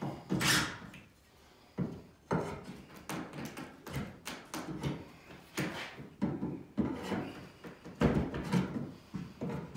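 Irregular wooden knocks, taps and rattles from an interior door's jamb being fitted and tapped into its rough opening.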